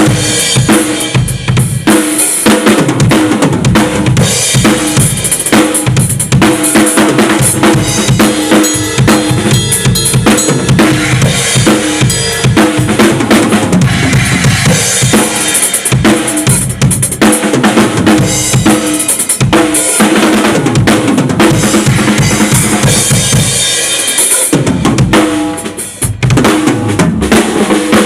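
Drum kit played at full volume in a studio sound check: a steady beat of kick drum and snare with cymbals. Near the end it drops away briefly, then comes back in.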